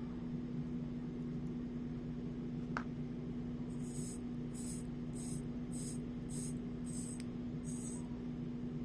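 Steady low hum with room noise. A single click comes a little under three seconds in, then a run of about seven short, hissy high-pitched scrapes spaced a little over half a second apart.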